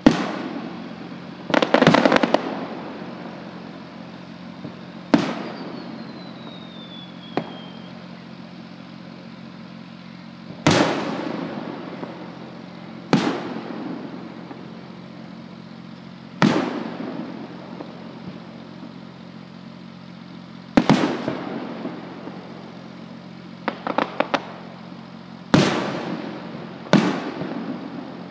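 Aerial firework shells bursting at a distance, about nine loud bangs spaced a few seconds apart, each trailing off in a rolling echo. A quick cluster of crackling pops comes about two seconds in and again near the end, and a thin falling whistle follows the third bang.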